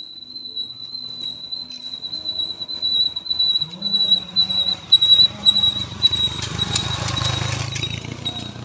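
Motorcycles climbing a steep uphill road, their engines growing louder from about four seconds in and loudest near the end as they ride past. A steady high-pitched whine sits underneath.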